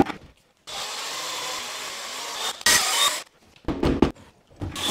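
Cordless drill spinning a mixing paddle in a bucket of joint compound that is being thinned with water. It runs steadily for about two seconds, then in short louder bursts, with a few knocks in between.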